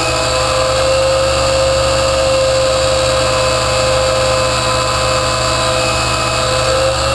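Harbor Freight Drill Master 6-inch abrasive chop saw running steadily with its abrasive disc cutting through 1-inch square steel tube under gentle feed pressure: a steady motor whine over a hissing grind, its pitch sagging slightly near the end.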